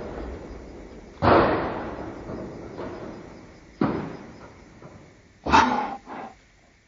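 The tail of a loud blast fading away, then a sudden bang about a second in that dies off with a long rolling echo, a second sharper bang about two and a half seconds later, and a shorter burst near the end.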